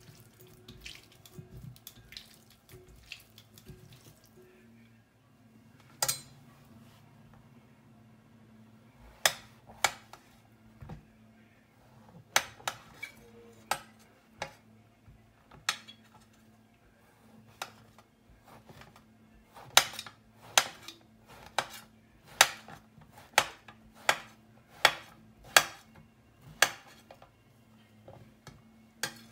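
Faint clinks of tongs tossing noodles in a glass bowl at first, then a chef's knife slicing mushrooms on a glass cutting board, with sharp clacks each time the blade hits the glass. The clacks come scattered at first, then in a steady run of about three every two seconds in the last third, over a faint steady hum.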